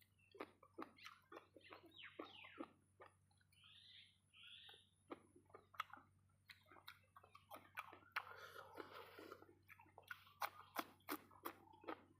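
A person chewing food close to the microphone: faint, irregular wet mouth clicks and lip smacks, with a longer noisy stretch about two-thirds of the way through.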